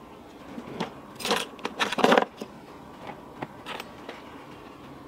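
Small tools and parts handled on a phone-repair bench: a run of sharp clicks and short scrapes, loudest between one and two seconds in, over a faint steady hum.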